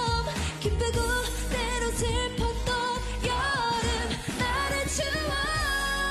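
K-pop girl-group song: female voices singing a melody over a steady dance-pop beat.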